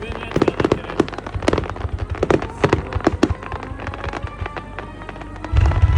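Fireworks: a dense run of crackling pops and small bangs, then a deep boom of a shell bursting near the end.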